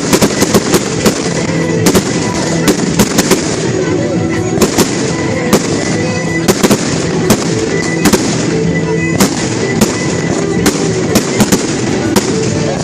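Fireworks going off in an irregular run of sharp bangs and cracks, sometimes several in a second, over steady background music.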